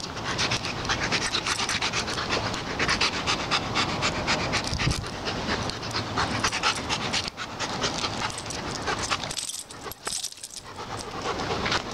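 A dog rolling on its back on asphalt, its fur and harness scraping against the rough surface in a fast, gritty rasping, with panting. The scraping stops about nine and a half seconds in as the dog gets up.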